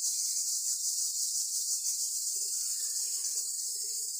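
Steady high-pitched insect chorus, with faint scattered lower sounds under it.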